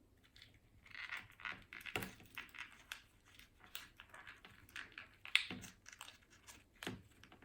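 Plastic packaging being crinkled and pulled at by hand: a run of faint, irregular crackles and clicks, with one louder snap a little past halfway.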